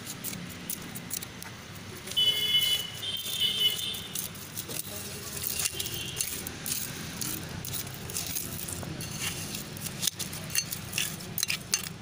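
Bitumen-coated stone chips clinking and rattling against each other and the metal bowl of a hand-operated bitumen extraction centrifuge as they are stirred by hand in benzene. A brief high-pitched tone sounds about two seconds in.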